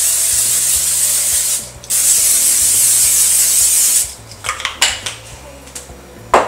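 Aerosol olive oil cooking spray hissing in two long sprays of about two seconds each, one into each of two pans, with a short break between. A few light clicks follow, then a sharp knock near the end.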